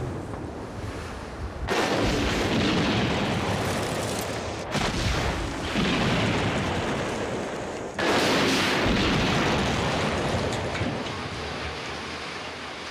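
Dynamite pre-blast charges going off in a high-rise's reinforced concrete core walls: three sudden loud blasts about three seconds apart, each dying away slowly over a couple of seconds.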